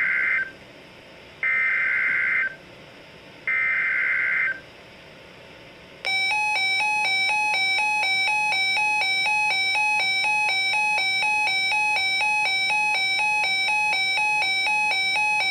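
NOAA Weather Radio emergency alert: three one-second bursts of screechy digital data tones (the SAME header), then, about six seconds in, a steady buzzy alert tone that flips rapidly back and forth between two pitches, signalling the start of a weather warning.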